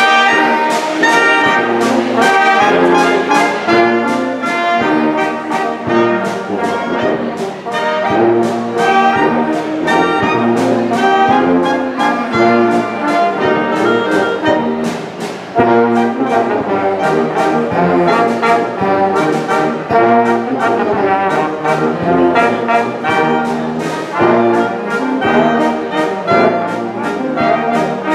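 Small brass-and-reed band playing a lively tune together: trumpet, trombone, tuba, clarinets and saxophone, over a steady beat.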